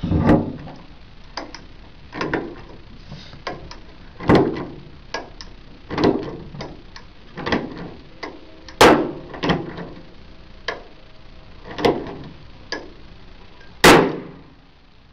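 Hand rivet puller clacking stroke after stroke as it pulls a CherryMax blind rivet, a dozen or so sharp clicks about a second apart. The last and loudest snap, about 14 seconds in, is the rivet's stem breaking off and shooting out.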